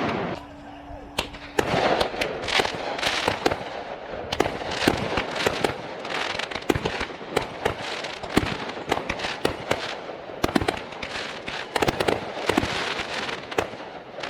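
A fireworks display going off in a dense barrage of sharp bangs and crackling, with many reports a second from about a second and a half in.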